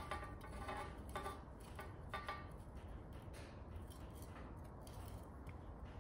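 Faint turning of a threaded steel bar being screwed into a fluxed stainless-steel tube, with a few light clicks in the first couple of seconds over a low steady hum.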